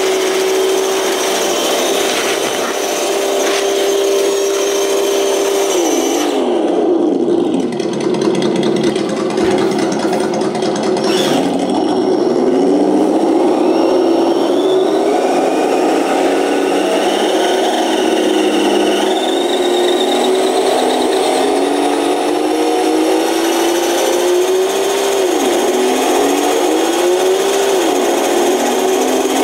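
Simulated truck engine from a Sense Innovations ESS-Dual sound module played through the RC truck's speakers. It holds a steady pitch, drops about six seconds in, then climbs slowly as the throttle is applied, with two brief dips near the end as the simulator shifts gears.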